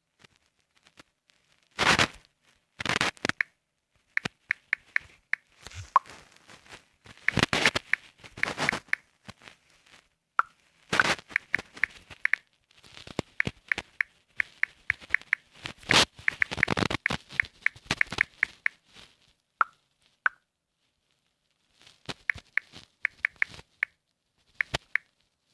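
Smartphone on-screen keyboard clicks in quick runs as a message is typed. A few louder taps and handling knocks, and several brief beeps, come in between.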